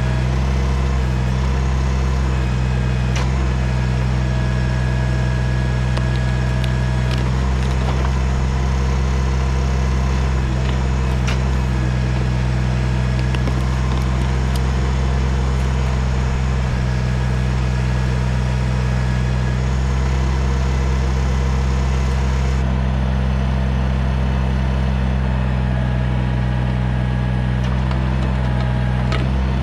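Kubota BX tractor's small three-cylinder diesel engine running steadily as it works the backhoe, with a few sharp clanks scattered through.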